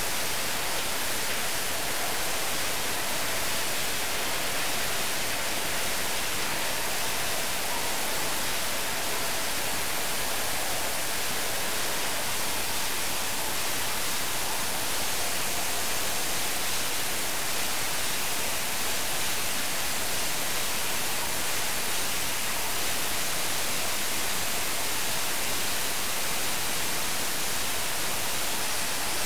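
Steady, even hiss, strongest in the upper range, with no rhythm and no change in level.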